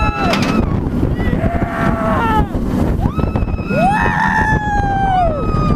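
Riders on a high-speed roller coaster whooping and screaming in several long, rising-and-falling cries, the loudest about four seconds in, over heavy wind rumble on the microphone.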